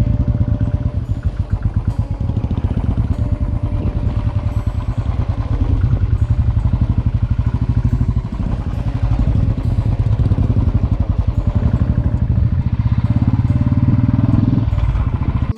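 A motor vehicle engine running steadily, with a rapid even pulsing.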